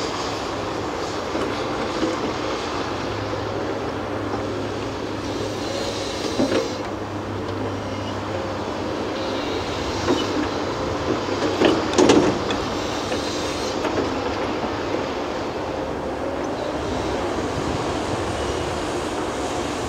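Caterpillar 330F VA crawler excavator working: steady diesel engine and hydraulic drone, with a few short knocks, the loudest a cluster a little past halfway through.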